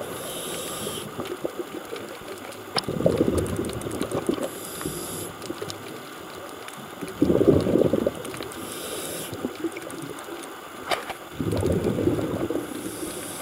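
A scuba diver's breathing heard underwater: a short hiss on each breath in, then a burst of exhaled bubbles about two seconds later, repeating about every four seconds.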